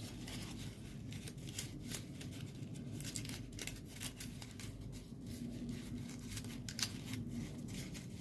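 Folded paper origami units rustling and scraping in irregular short strokes as a unit is slid and tucked into the partly built kusudama.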